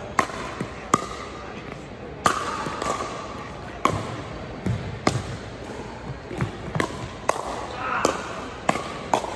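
Pickleball rally: sharp pops of paddles hitting the plastic ball, and the ball bouncing, about ten times at irregular intervals of roughly a second, over a background of voices.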